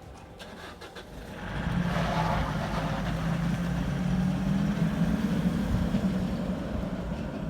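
A motor engine running steadily. It grows louder about a second and a half in and eases off a little near the end.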